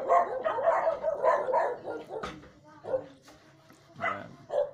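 A dog whining with a wavering pitch in the first second or so, then a few short yelps or barks.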